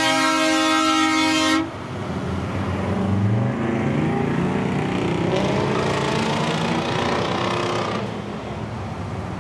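Semi truck's air horn blowing a long, steady blast that cuts off sharply about a second and a half in, followed by the rumble of passing diesel truck engines, one rising in pitch about three seconds in.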